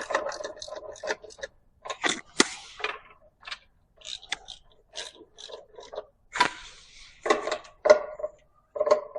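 Hand tools working valve cover bolts on an engine: ratchet clicking in short runs, with metal clinks and scrapes between them as the bolts are brought down evenly.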